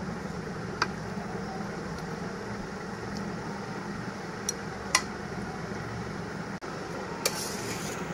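Metal spoon clinking a few times against an aluminium pot while spreading meat curry over rice, with a short scrape near the end, over a steady low hum.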